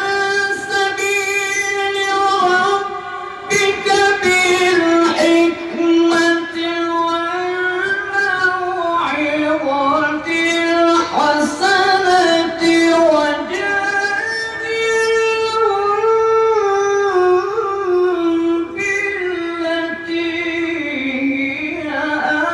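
A male Quran reciter's voice in the melodic tilawah style, sung in long ornamented phrases in a high register with only brief breaks. The pitch climbs in the middle and falls toward the end.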